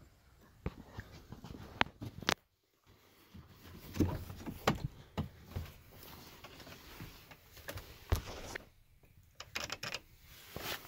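Scattered clicks and knocks of a pickup truck's door and cab being handled as someone gets in beside the steering column, with the engine off.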